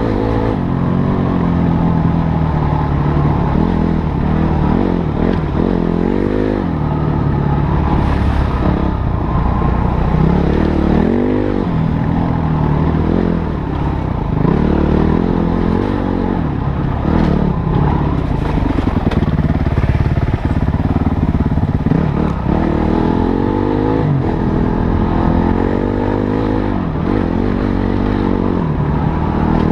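Motorcycle engine running under way, its pitch climbing and dropping again and again as the throttle is worked on and off.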